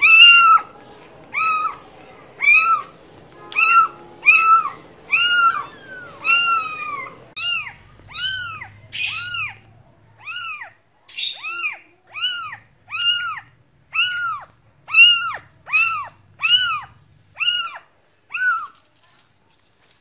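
A cat meowing over and over in a quick series of short, high-pitched meows, each rising and then falling in pitch, about three every two seconds. The meows stop shortly before the end.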